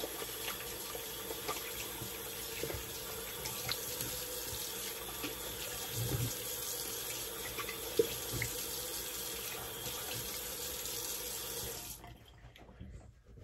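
Bathroom tap running into a sink while shaving lather is rinsed off a face, with a few splashes. The running water cuts off about twelve seconds in, as the tap is shut.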